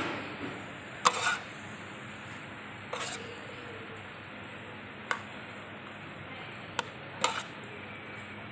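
Metal spatula scraping and knocking against a metal wok while stir-frying pork skin pieces: about five short scrapes spread a second or two apart, over a steady low hiss.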